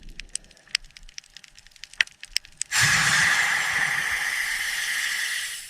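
Scattered light clicks, then a loud hiss of a pressurized jet that starts suddenly about three seconds in, runs steady for nearly three seconds and fades away.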